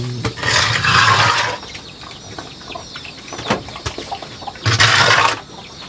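Two short, noisy farm-animal calls, one about a second long near the start and a shorter one near the end.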